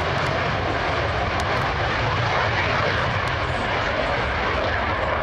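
MiG-21 fighter jet's turbojet engine: a loud, steady rushing noise with a deep rumble beneath it.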